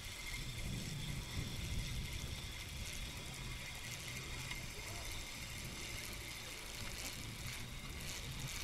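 Steady outdoor ambience: wind rumbling on the microphone over a faint trickle of water at the bank.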